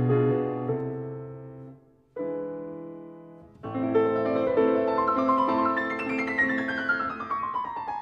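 Background piano music: a chord that fades away, a short held chord, then a quick run of notes descending from high to low.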